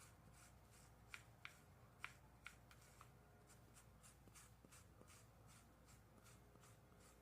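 Faint sticky, tacky clicks of hair gel being worked into hair, a steady run of little ticks about two or three a second, with four louder clicks between one and two and a half seconds in.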